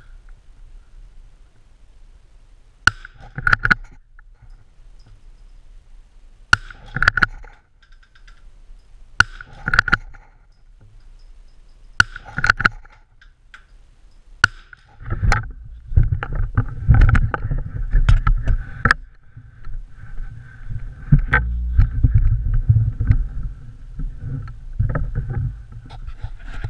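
A .22 biathlon rifle fired five times in prone, one shot every two and a half to three seconds, each sharp crack followed shortly by the clack of the bolt being worked. After the fifth shot come loud low rumbling and knocks of the rifle being handled and moved close to the microphone.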